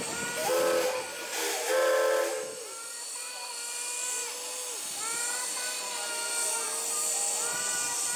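Steam whistle of a JNR Class C11 steam locomotive blowing: two short blasts, then longer held blasts that bend slightly in pitch, over a hiss of steam.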